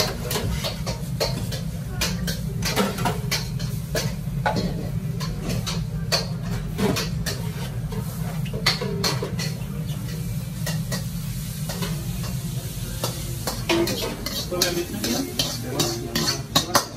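Metal ladle scraping and knocking against a wok as food is stir-fried and sizzles, with frequent sharp clanks of utensils on pans. A steady low rumble runs underneath.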